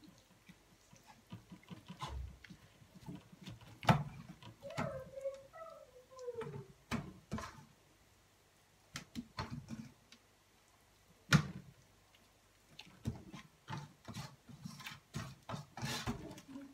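Hands working marinade into a raw lamb shoulder in a stainless steel bowl: irregular wet handling noises and knocks of the meat and hands against the bowl, the two loudest about 4 and 11 seconds in. A brief wavering, falling call sounds about five seconds in.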